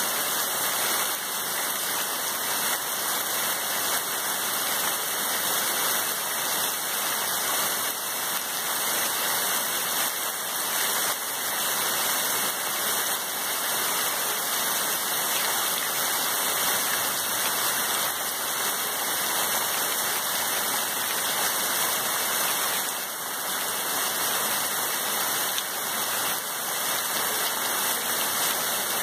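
Heavy rain pouring down steadily on forest trees and a dirt road, an even, unbroken hiss of downpour.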